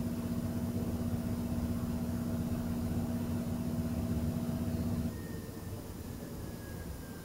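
Steady low machine hum with a held tone, stopping abruptly about five seconds in; after that a fainter background with a thin tone falling slowly in pitch.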